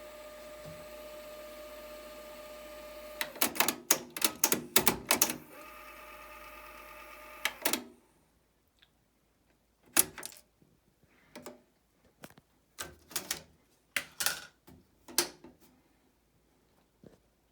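Sony TC-RX410 cassette deck mechanism: a steady motor whine, broken by a run of sharp mechanical clicks and clunks. The motor stops about eight seconds in, and after that only scattered clicks of the transport and buttons are heard.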